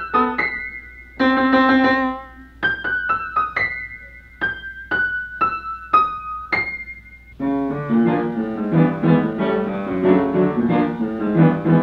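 Solo piano: a slow melody of single struck notes with one fuller chord, then about seven seconds in a different, denser passage of lower chords in a steady rhythm with a duller sound.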